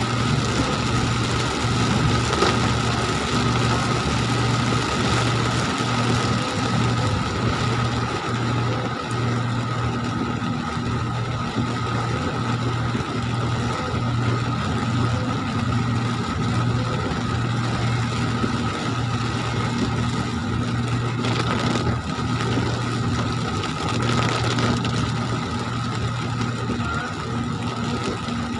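Steady noise of heavy rain on the windscreen and roof, and of tyres on the wet road, heard inside a moving car over a low, steady engine hum.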